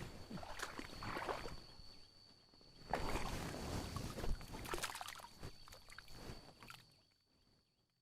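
Water sloshing and splashing in irregular bursts with rustling and knocks, loudest in the middle and fading out near the end, over a faint steady high whine.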